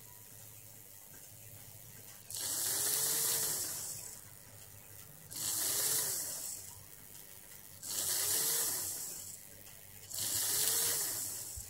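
Märklin 3046 BR 150 X model steam locomotive's motor and drive running on a roller test stand in four short bursts, each a whirring hiss with a whine that rises and then falls as the motor speeds up and slows down. A faint steady low hum lies between the bursts.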